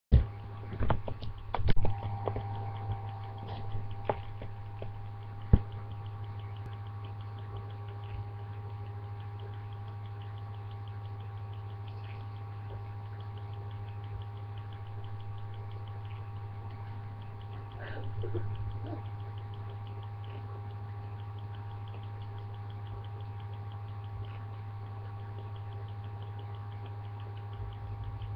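Steady low hum throughout, with a few sharp clicks and knocks in the first few seconds and a brief swell of noise about two-thirds of the way through.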